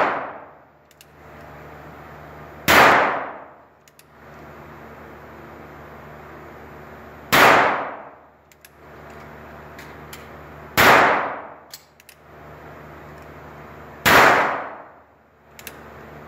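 Handgun fired four times, a few seconds apart. Each shot rings out loudly and dies away over about a second in the echo of an indoor range, with faint clicks in the gaps between shots.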